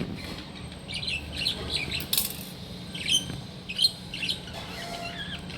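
Birds chirping repeatedly in short wavering calls, mixed with scattered clicks and light handling noises, one sharper click a little before four seconds in.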